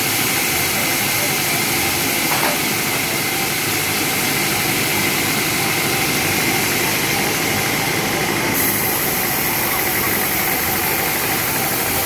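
Sawmill saw and its drive running steadily, a constant loud mechanical drone with a steady whine while the teak log is set on the carriage.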